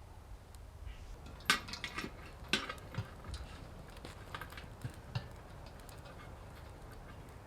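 Camp gear being handled: a cluster of sharp clinks and knocks, like metal cookware or utensils touching, between about one and a half and three seconds in, then a few lighter ticks.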